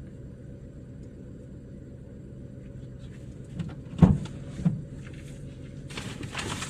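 Vehicle engine running with a steady low hum, heard from inside while it drives slowly down a bumpy dirt track, with a sharp clunk about four seconds in and a lighter one just after.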